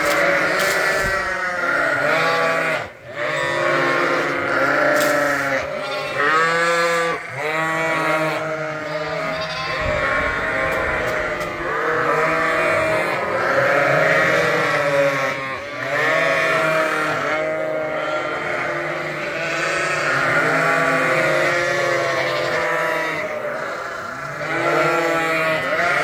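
A flock of ewes and lambs bleating, many calls overlapping one after another with hardly a pause.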